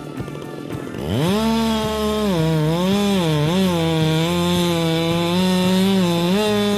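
Chainsaw engine revving up sharply about a second in, then running at high revs with its pitch dipping and recovering several times, as when the chain is loaded in a cut.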